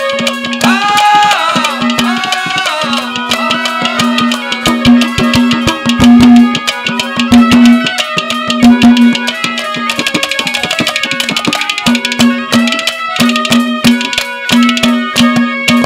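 Instrumental passage of Haryanvi ragni folk music: hand drums beat a quick rhythm under a steady low note, with a melody line that slides in pitch.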